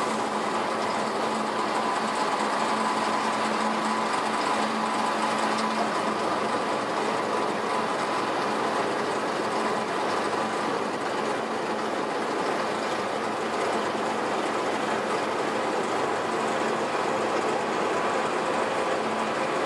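Steady engine drone mixed with rushing water noise, unchanging in level throughout.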